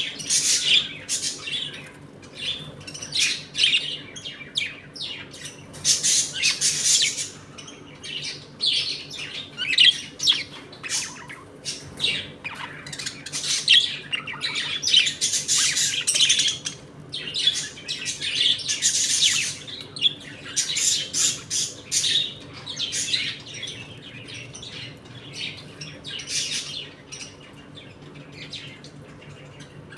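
A colony of budgerigars chirping and chattering, many short high calls overlapping without pause, over a faint steady low hum.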